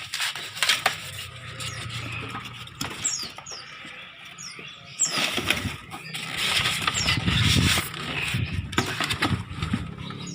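Packing material being handled as a shipping box is emptied: rustling and crinkling, with short squeaks and scattered knocks.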